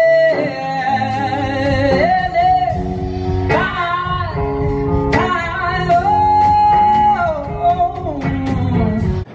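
Live blues band: a singer holds long, wavering notes over electric guitar and band accompaniment. It cuts off abruptly near the end.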